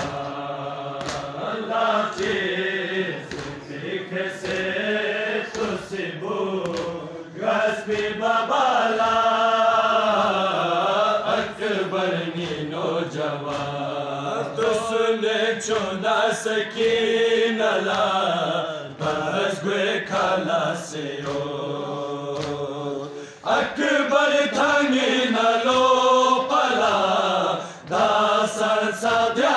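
Group of men chanting a Balti noha, a Shia mourning lament, together in long melodic phrases. Short sharp slaps of chest-beating (matam) sound through the chant.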